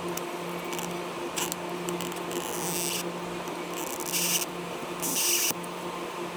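Short scraping strokes of a tool rubbing against a phone's display or frame, four of them, over a steady low hum.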